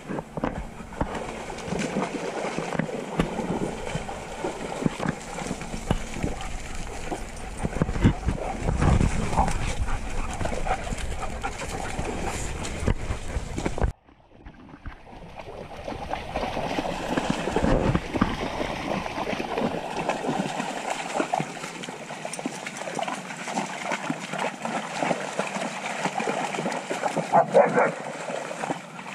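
A group of shepherd dogs barking and playing at a pond, with water splashing. The sound cuts out briefly about halfway through.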